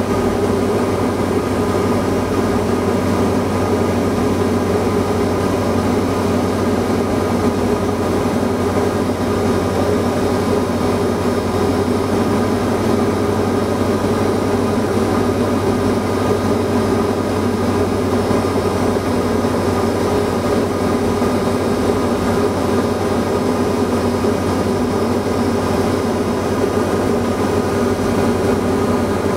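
Diamond DA40 NG's Austro AE300 turbodiesel engine and propeller running at a steady setting in flight, heard inside the cockpit as a constant drone with several steady tones over a rush of air.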